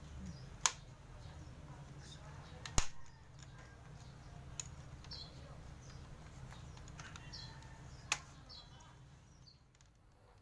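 Three sharp plastic clicks, the loudest about three seconds in: the clips of a laptop's plastic casing snapping as the case is pried open with a card.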